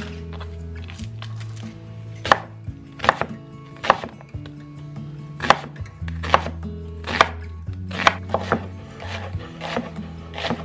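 Chef's knife cutting through a peeled onion onto a wooden cutting board: slow, separate chops, about one a second.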